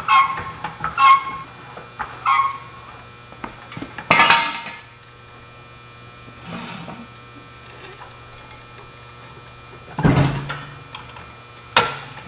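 Steel jack stands being set under a log splitter: several metal clanks that ring briefly, a louder clatter about four seconds in, then a couple of thuds near the end. A steady electrical hum runs underneath.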